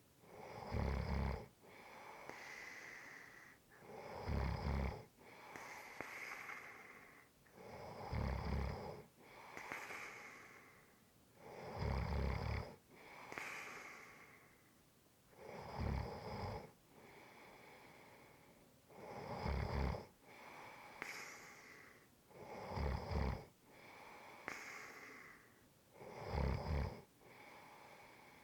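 A person snoring steadily in a slow, even rhythm: a loud, low, rattling snore about every three and a half to four seconds, with a softer breathy sound between snores.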